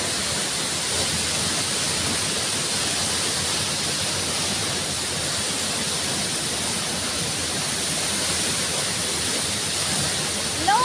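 Waterfall: water pouring and splashing as a steady, even rush. Right at the end a brief pitched call rises and falls.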